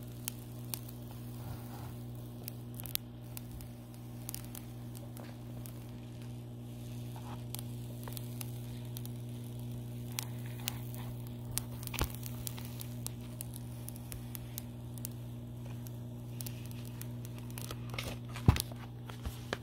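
Clear plastic protective film slowly peeled off a prep mat, giving sparse crackles and ticks as it separates, with a few louder snaps near the end. A steady low hum runs underneath.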